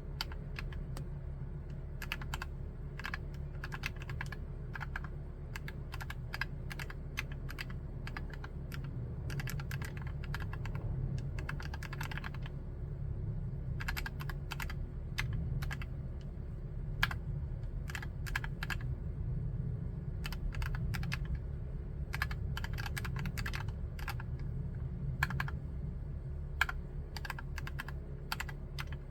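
Typing on a Drop + OLKB Preonic ortholinear mechanical keyboard with Gateron Black linear switches: irregular keystrokes coming in quick bursts with short pauses between them.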